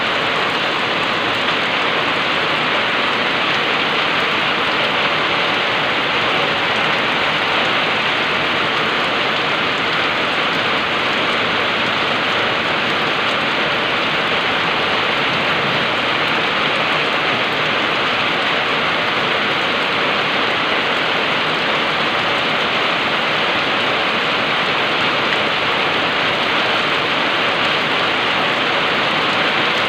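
Heavy rain falling steadily on a water-covered paved street and foliage: a dense, even hiss of rain.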